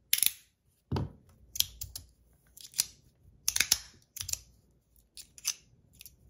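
Metal plates of a magnetic fidget slider being slid and rotated by hand, snapping into place with a series of sharp metallic clicks, roughly one every half second to a second.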